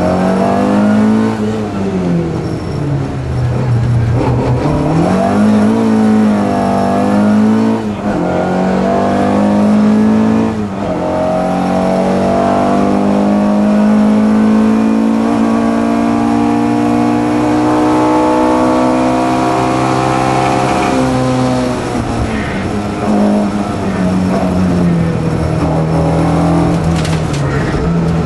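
Ford historic rally car's engine heard from inside the cockpit under hard driving. Its pitch rises and falls several times through gear changes and lifts over the first ten seconds or so, then climbs steadily through one long pull of about ten seconds before dropping back and running on at a steadier pitch.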